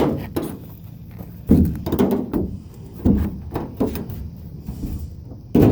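A few heavy, irregular thumps and knocks, the sound of someone clambering onto an old airplane's body.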